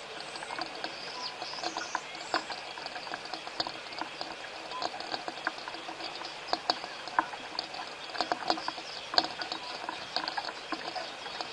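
Rain falling, heard as a steady hiss with many irregular sharp taps of drops landing close to the microphone.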